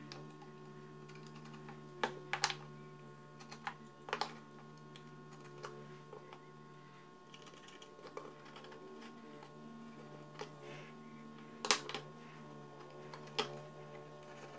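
Scattered light clicks and taps of a pencil and metal measuring tools (a combination square) being set down and worked against a wooden panel on a workbench, the sharpest about two seconds in and near the end, over a steady low hum.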